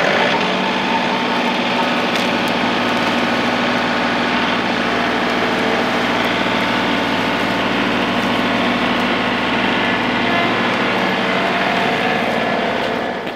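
John Deere compact tractor's diesel engine running steadily at a constant speed.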